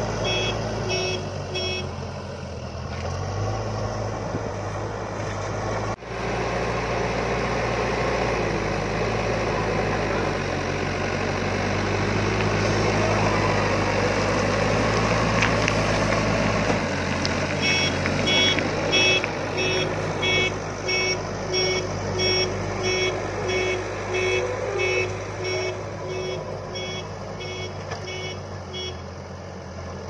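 A TATA backhoe loader's diesel engine runs under load while its front bucket works gravel, at its loudest around halfway as the bucket tips gravel onto a pile. Its reversing alarm beeps about twice a second at the start, and again from a little past halfway until near the end as the machine backs away.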